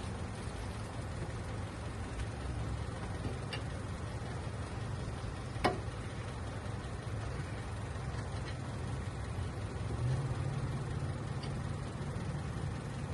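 Vehicle engine idling steadily, with a sharp metallic clink about halfway through and a few fainter ticks.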